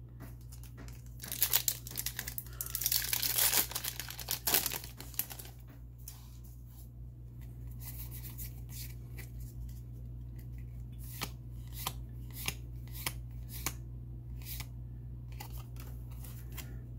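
Foil trading-card booster pack torn open and crinkled for the first few seconds, then cards handled and flicked through one by one: a sparse series of light, sharp clicks. A steady low hum lies underneath.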